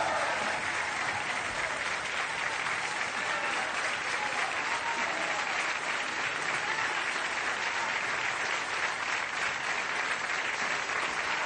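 Audience applauding, steady continuous clapping.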